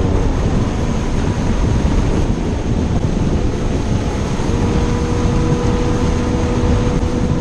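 Riamar 515 speedboat running fast: heavy wind buffeting on the microphone over a steady engine hum and the rush of the hull through the water. The engine hum stands out more clearly again from about halfway.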